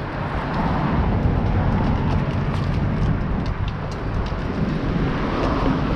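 Wind buffeting the microphone in a steady low rumble, with a 6S electric RC car running on the road underneath it.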